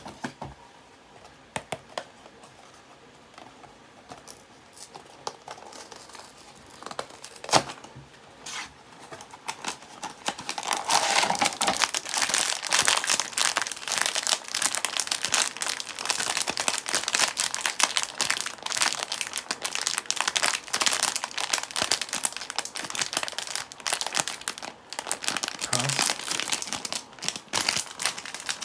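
Foil blind-box bag crinkling as hands work it open, a dense continuous crinkle from about ten seconds in. Before that, only a few scattered light clicks and taps, with one sharper click.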